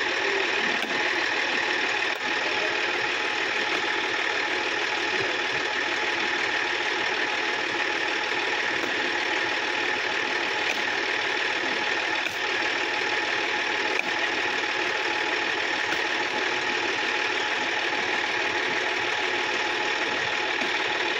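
Sonalika DI-50 RX tractor's diesel engine running steadily.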